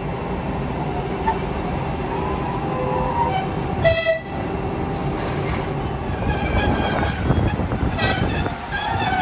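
Skoda ChS7 two-section electric locomotive rolling slowly along the platform with a steady low rumble from its wheels and running gear. A short horn toot sounds about four seconds in, and high squeaks and clicks come in over the last couple of seconds.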